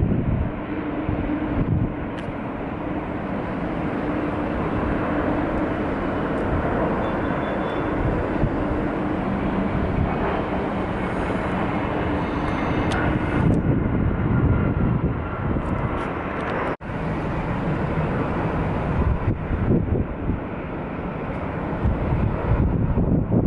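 Jet engines of an Emirates Airbus A380-800 running, heard as a steady broad rush with a faint steady tone in the first few seconds. The sound cuts out briefly once, about two-thirds of the way through.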